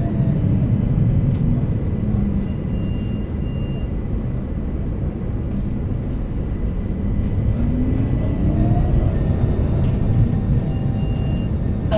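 Interior running noise of an electric tram: a steady low rumble of wheels on rail. Over it the traction motors' whine glides down in pitch near the start and rises again later, as the tram slows and picks up speed again.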